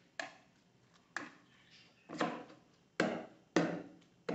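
A metal spoon stirring a wet mix of grated vegetables and beaten egg in a bowl: about six short knocks and scrapes of the spoon against the bowl, roughly one a second.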